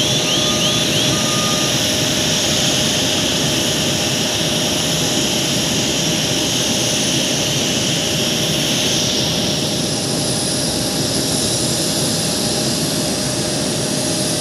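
Steady jet-turbine whine over a loud rushing rumble, with several high steady tones. A rapid series of short rising electronic chirps and an on-off beeping stop within the first two seconds. The upper whine changes pitch about nine to ten seconds in.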